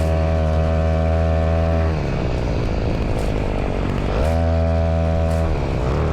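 Small gasoline engine of a ridden vehicle running at a steady speed. It eases off about two seconds in and picks back up around four seconds in.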